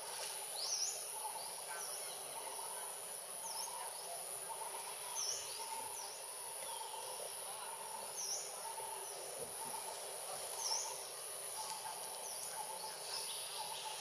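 Outdoor wildlife ambience: a steady, high-pitched insect drone, with short sharp bird chirps every second or two.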